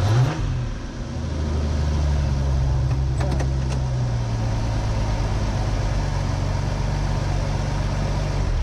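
Jeep Comanche race truck's engine idling steadily with the truck stopped, after a short blip of revs at the start.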